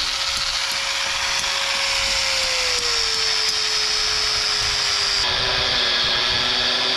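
A small electric power tool's motor running steadily with a whine, dropping slightly in pitch about halfway through and holding there.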